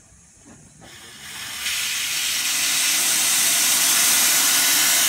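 Steam hissing steadily from the open cylinder drain cocks of Northern Rock, a 15-inch gauge steam locomotive. The hiss builds up about a second in and then holds loud and even.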